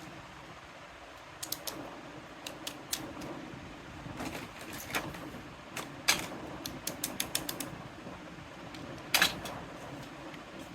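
Small plastic toy kitchen pieces clicking and tapping as they are handled, in irregular light knocks spread over several seconds, with two louder clacks about six and nine seconds in.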